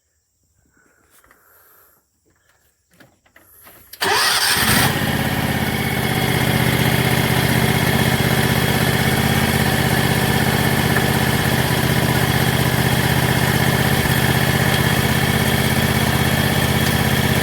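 John Deere X580 lawn tractor's Kawasaki V-twin engine cranking briefly and catching about four seconds in, then running steadily: the first start after an oil change with a prefilled filter, without choke.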